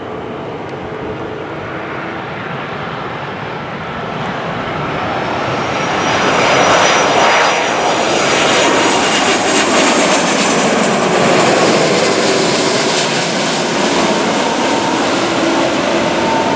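Airbus A330 airliner passing low overhead on final approach, gear down: jet engine noise swells from about four seconds in, with a high whine as it comes over, and stays loud as it moves away.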